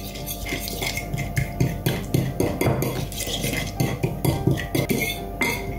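Metal fork stirring a thick, wet spice paste in a ceramic bowl, a quick irregular run of scrapes and clinks against the bowl.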